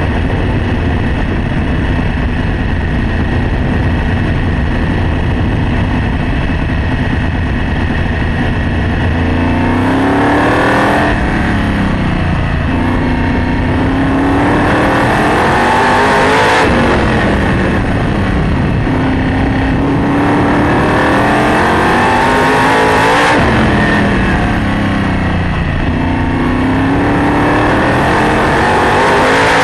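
Sprint car's V8 engine running at speed, heard from on board. After a steadier first stretch, the pitch climbs and falls back about every six seconds as the car laps the oval.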